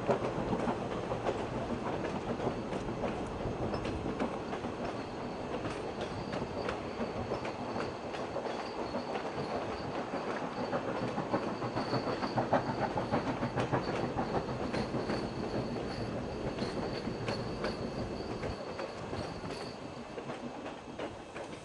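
Steam-hauled passenger coaches rolling past on a curve, wheels clattering over the rail joints with many small clicks. A thin, high, steady wheel squeal runs through most of it. The sound eases off slightly near the end as the last coach goes by.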